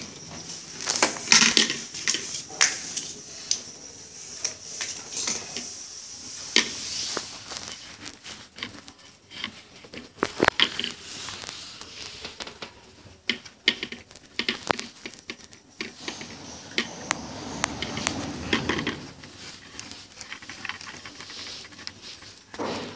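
Hands handling wires, small screws and a small wooden box while fitting an electronic fan regulator into it: irregular clicks, knocks and small clinks.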